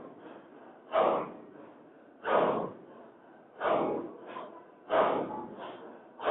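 A Shadhili hadra dhikr circle chanting in rhythmic, breathy exhalations pushed from the chest, about one every second and a quarter, with fainter breaths in between.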